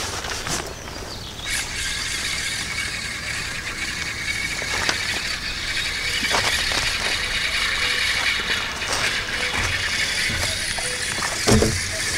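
Fishing reel being cranked steadily, a continuous whirring of its gears, with a knock near the end.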